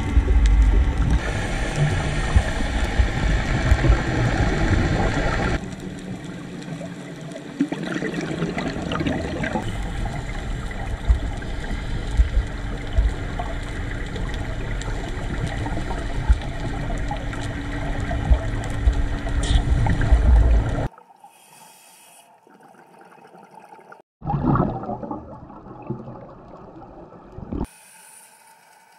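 Underwater ambience picked up by the camera: a steady hiss and low rumble of water with gurgling. It changes abruptly at several cuts, drops much quieter about 21 s in, and returns briefly louder a few seconds later.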